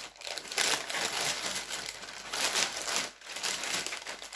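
Plastic poly mailer bag crinkling in irregular rustles as it is held and cut open with scissors.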